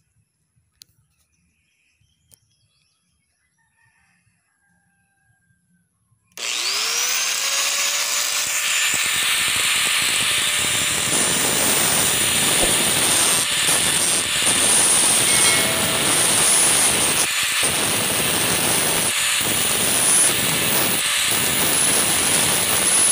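After about six seconds of near silence, an angle grinder switches on, its whine rising as the motor spins up, then runs loudly and steadily while a small metal piece is held against its abrasive disc. The sound dips briefly a few times.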